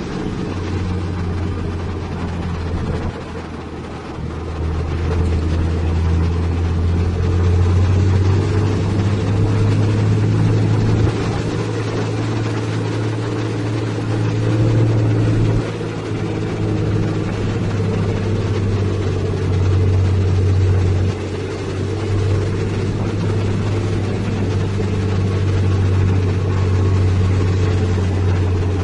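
Isuzu self-loader truck's diesel engine running under way, heard from inside the cab as a loud, steady low drone that dips and picks up again a few times.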